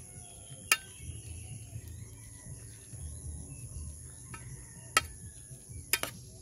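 A spoon clinking against the rim of an aluminium cooking pot while greens are stirred: sharp clinks about a second in, about five seconds in, and twice near the end. Crickets chirp steadily throughout.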